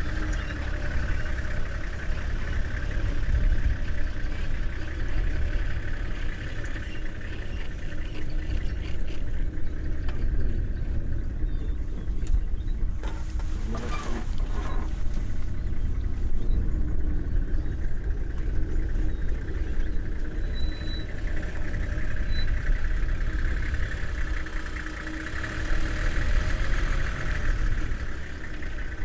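Safari vehicle's engine idling with a steady low rumble.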